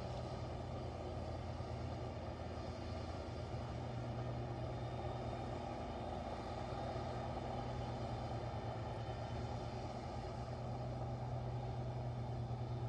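Large rotary snow blower truck running with a steady, even engine drone while its blower cuts into deep snow and throws it aside.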